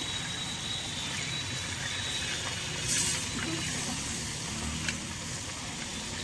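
Pieces of fish frying in hot oil in a kadai: a steady sizzle, with a louder surge of spattering about three seconds in and a few faint crackles.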